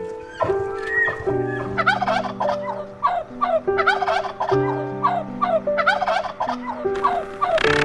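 A rapid run of short, falling animal calls, two or three a second, over background music with long held notes.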